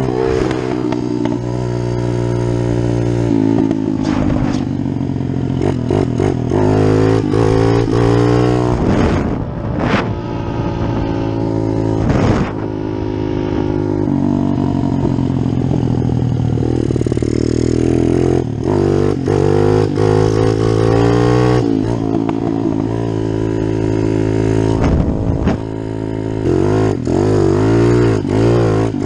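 Kawasaki KLX110 pit bike, bored out to 143cc, with its single-cylinder four-stroke engine running under way. The engine note climbs and falls repeatedly as the rider accelerates and eases off, with a few brief knocks along the way.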